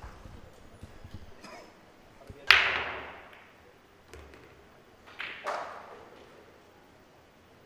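Pool break shot: a loud, sharp crack of the cue ball driving into the racked balls about two and a half seconds in, trailing off over about a second, then a second, quieter crack of balls colliding a little after five seconds in.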